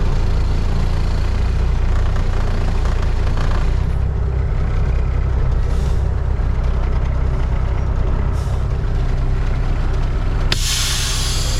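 Truck engine running steadily at low speed. About ten seconds in, the air brakes release a sudden loud hiss of air.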